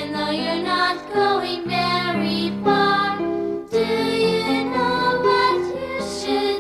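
Children's song with singing over instrumental accompaniment.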